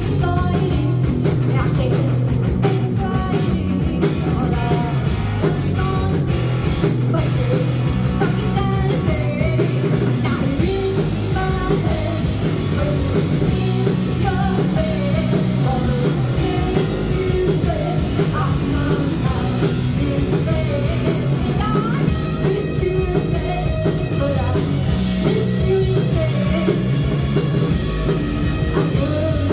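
A rock band playing live, loud and steady, with a singer's voice over the band.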